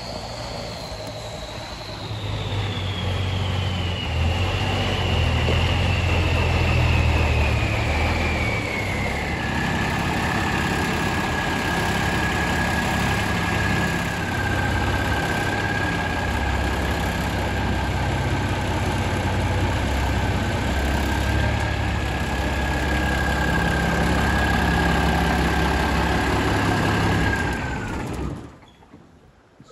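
M35 deuce-and-a-half army truck's engine running as the truck is driven: a deep, steady rumble with a high whine that falls in pitch over the first several seconds and then holds steady. The sound cuts off suddenly near the end.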